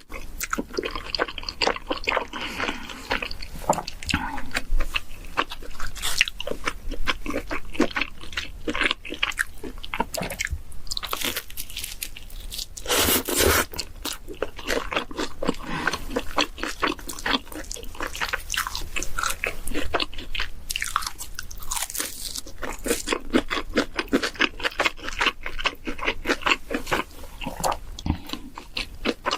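Close-miked chewing and biting into pizza, with dense crunching from the crust.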